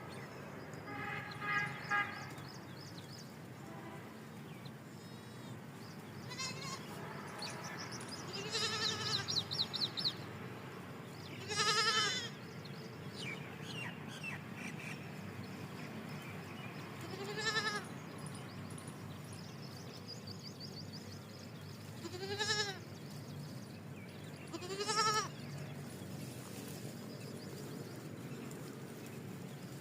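Goat kid bleating: about four separate high bleats spaced several seconds apart, each rising then falling in pitch.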